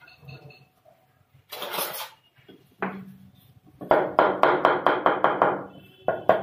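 Hammer tapping a chisel against the wall plaster in quick runs of sharp strikes, about five a second, chipping out the wall along the edge of a stone counter. A brief scrape and a single knock come before the first run, and a second run starts near the end.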